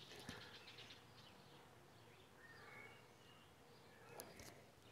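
Near silence: faint outdoor background hiss with a few faint, short high chirps and a couple of soft clicks.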